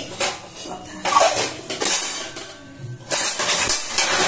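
Steel kitchen pots and utensils clattering in irregular bursts, with music playing underneath.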